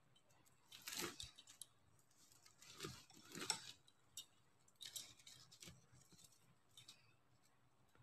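Faint rustling and clicking of plastic beads and artificial leaves being handled while threading a beaded wall hanging, in several short bursts.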